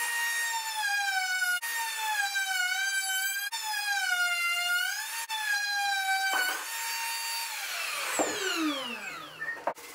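Compact cordless router cutting along the edge of a timber newel post, rounding it over. Its high whine dips in pitch again and again as the bit bites and recovers, breaks off briefly, then winds down with falling pitch after it is switched off about two seconds from the end.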